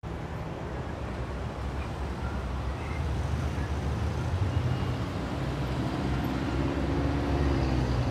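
City traffic ambience: a steady rumble of road traffic that grows a little louder, with an engine hum joining in over the last few seconds, then cutting off suddenly.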